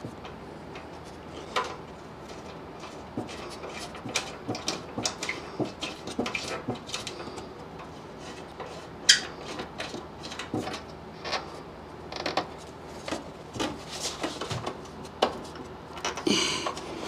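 Irregular clicks, taps and light knocks of hand work on the front end of a Jeep Wrangler TJ, with metal parts and bolts handled while the grille is refitted. A sharper knock stands out about nine seconds in, and a quick run of rattling clicks comes near the end.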